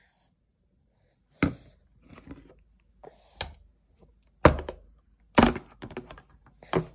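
Hard plastic straw cup knocking against a plastic high chair tray: five sharp knocks roughly a second apart, with softer bumps in between.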